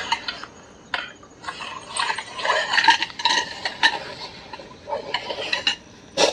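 Light clinks, taps and rustling of small camping gear being handled, coming irregularly.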